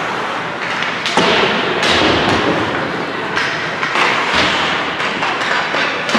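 Thuds and knocks over a steady din of voices in a large echoing hall during a team game, with the sharpest impact about a second in.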